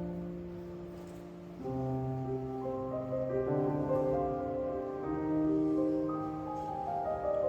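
Piano trio of piano, violin and cello playing a slow, tender classical piece, with the piano to the fore and long held notes. The music swells a little under two seconds in.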